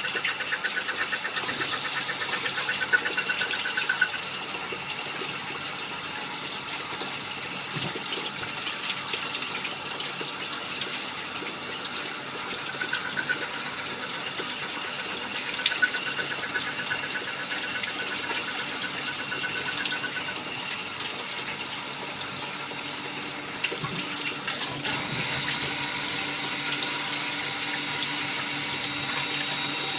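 Small-diameter automatic lathe running, with a steady splash of coolant streaming over the work. A high warbling tone comes and goes, and the rush grows a little louder near the end.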